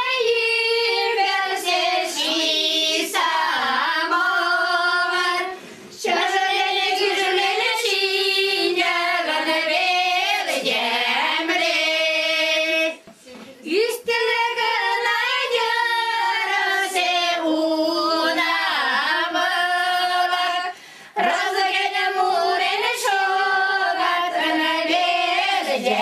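A group of Mari women singing a folk song together in long phrases, with three short pauses between them.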